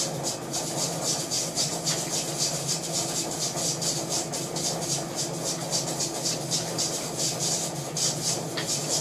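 Jewelry laser welding machine firing rapid pulses at a gold ring, a sharp tick with each shot at about five a second over the machine's steady hum.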